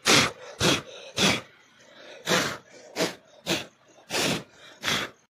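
Someone blowing short, hard puffs of breath onto a freshly ash-baked flatbread to blow the ash and dust off it, about eight puffs at uneven intervals.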